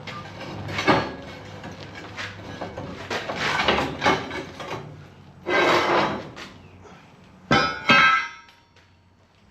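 Heavy steel plate being struck to knock a freshly cut part free: a few separate clanks, a rattling scrape, then two sharp hits close together near the end that leave the steel ringing.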